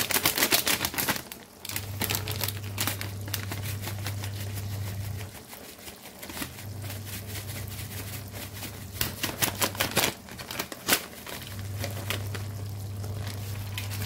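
Gongura chicken curry crackling and spattering in a hot kadai, irregular sharp clicks and pops throughout. A low hum comes and goes underneath, starting about two seconds in, dropping out twice.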